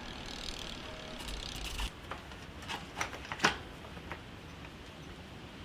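DT Swiss star-ratchet freehub ticking quietly as the wheel spins, its ratchets freshly cleaned and greased. A few sharp clicks come about three seconds in.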